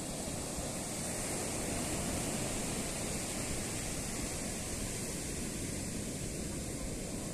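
Ocean surf breaking and washing up onto a sandy beach, a steady rushing noise.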